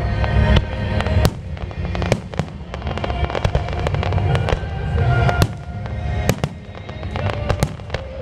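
Aerial fireworks going off in quick succession, sharp cracks and booms many times a second over a constant low rumble, with music playing underneath.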